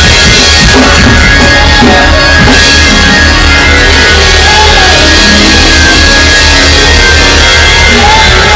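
Loud live church band playing fast praise-break music with a driving drum beat, the recording overdriven.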